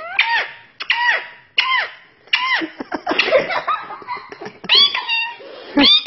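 Yellow Indian ringneck parakeet giving short, high calls that rise and fall, repeated roughly once a second. A girl laughs in the middle and again near the end.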